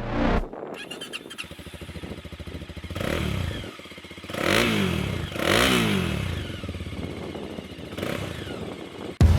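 Voge 300DS motorcycle's single-cylinder 300 cc engine idling through its very quiet stock exhaust. It is revved twice, at about four and a half and five and a half seconds in, then settles back to idle.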